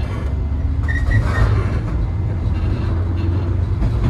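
Running noise of a JR 103-series electric train, heard on board: a steady low rumble from its MT55 traction motors and wheels on the rails.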